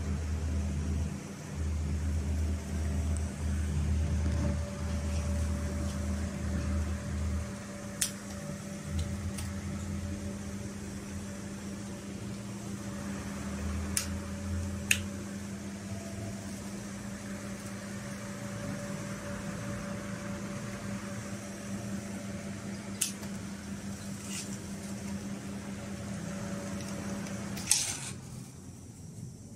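Mini ceiling fan running with a steady electric motor hum, with a low rumble for the first several seconds and a few light clicks. Near the end the hum cuts off suddenly with a click.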